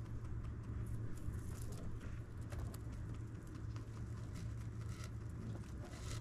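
A lop-eared rabbit chewing and nosing through loose hay: irregular crisp crunches and rustles, over a steady low hum.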